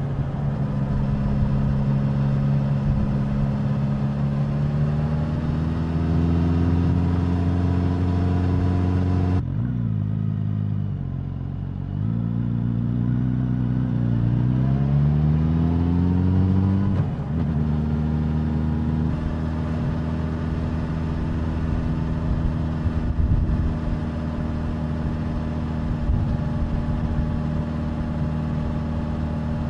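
Suzuki GSX-S1000's inline-four engine and exhaust under way. The pitch climbs slowly, then the throttle shuts abruptly about a third of the way through and the revs fall away. The engine then pulls up again to a gear change just past halfway and settles into a steady cruise.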